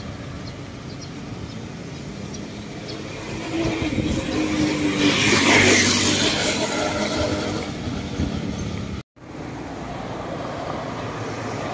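Road traffic on a busy multi-lane road. One vehicle drives past, growing louder to a peak about six seconds in and then fading away. The sound drops out for a moment at about nine seconds, and the steady traffic noise then goes on.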